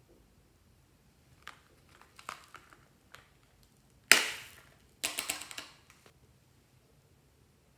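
Light plastic clicks from a plastic toy being handled. About four seconds in comes a sudden loud rattle, and a second later a quick run of rattling clicks, as small foam beads are shaken out of the toy into a dish of slime.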